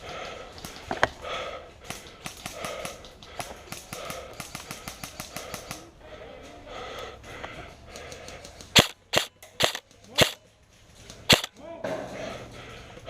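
Airsoft gun firing single shots: five sharp cracks spread over about two and a half seconds, starting about nine seconds in. Before them, fainter clicks and rustling.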